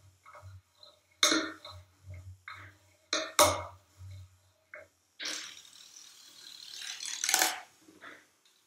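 Cello sounded with objects rather than the bow: a few sharp knocks and taps on the instrument, then a noisy scraping sound that grows louder for about two seconds and stops.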